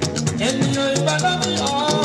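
Live band music: a man singing into a microphone over electric guitar and drum kit, with a quick, even percussion rhythm throughout.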